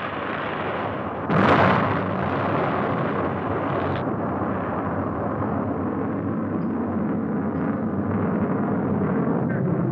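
Atlas rocket exploding: a sudden blast about a second in, over a continuous heavy rumble that goes on after it.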